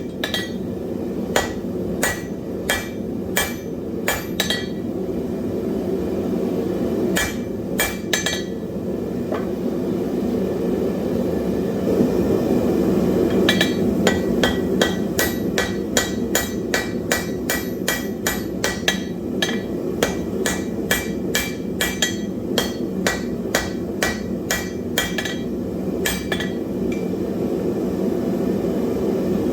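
Hand hammer striking hot wrought iron on an anvil, each blow ringing, in runs of about two strikes a second with a couple of pauses. A steady low rumble runs underneath.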